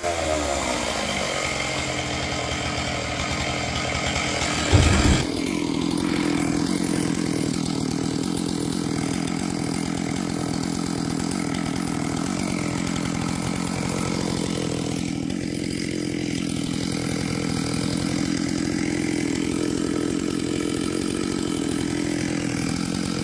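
Chainsaw engine running steadily at high speed while cutting a hard beech log, with one brief loud knock about five seconds in.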